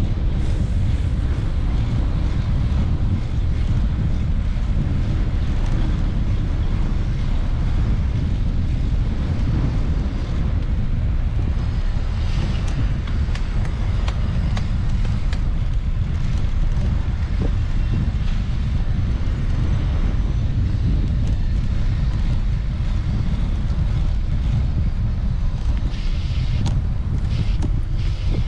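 Steady low wind rumble buffeting the microphone of a camera on a moving bicycle, with a few short clicks near the end.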